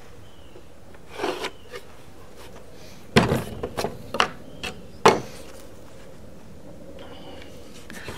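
Pieces of wood being handled and set down: a short rub just after a second in, then a run of sharp knocks and clatters, the loudest about three seconds in and another about five seconds in.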